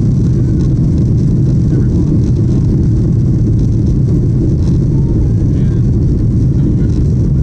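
Inside the cabin of a Boeing 737-800 climbing out after takeoff: the steady, loud low rumble of its CFM56-7B jet engines and the airflow over the fuselage.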